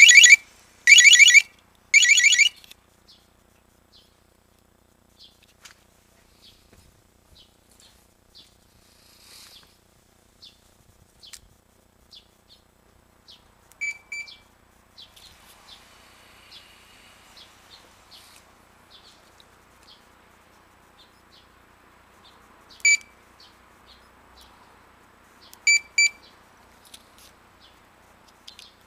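Motorcycle security alarm sounding: three loud siren bursts in the first couple of seconds, then short single chirps about halfway through and a few more near the end.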